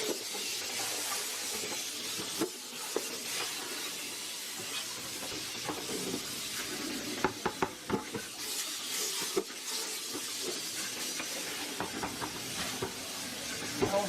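Tap water running steadily into a kitchen sink while a raw chicken is rinsed and handled, with a few sharp knocks and clicks near the middle.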